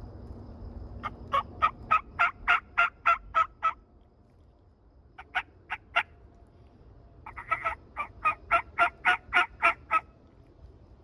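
Wild-turkey-style yelping, loud and close: a run of about ten evenly spaced yelps at about four a second, a short run of three, then another run of about ten.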